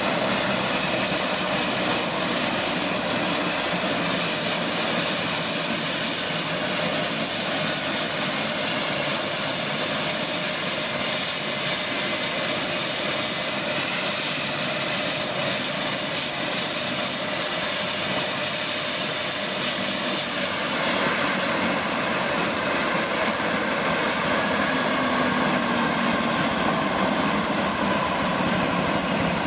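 Bell 429 GlobalRanger helicopter running on the ground at idle, its twin turboshaft engines giving a steady high whine under the turning main and tail rotors. About two-thirds of the way through the sound grows slightly louder, with a faint high whistle falling in pitch.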